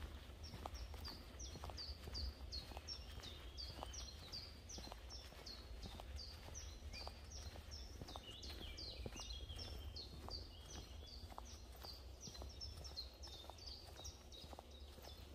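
A bird calling over and over with short, high, down-slurred chirps, about two to three a second, over the walker's footsteps on a forest path and a steady low rumble.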